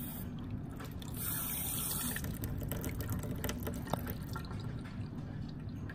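Water running through a 3D-printed miniature toilet and swirling down its bowl as it flushes, a steady trickling rush with a few small drips.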